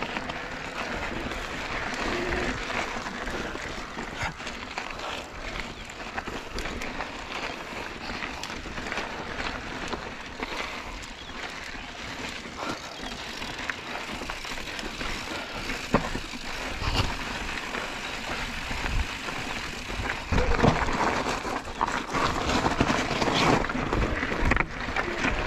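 Mountain bike ridden over a rocky trail: steady rushing tyre and riding noise, with scattered sharp knocks and rattles as the bike goes over bumps. The noise grows louder about twenty seconds in.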